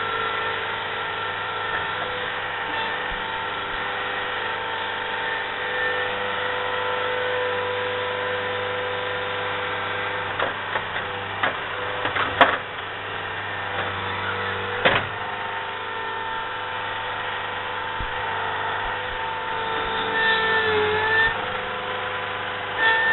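Diesel engine of a compact earthmoving machine running steadily with a whine, while the machine works the ground. In the middle come a series of sharp metallic knocks and clanks, and near the end the engine note dips briefly as it takes a load.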